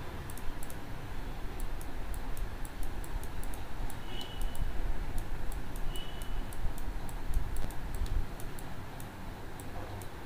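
Light, irregular clicking from a computer pointing device as handwriting is entered on screen, over a low steady hum. Two brief high chirps come about four and six seconds in.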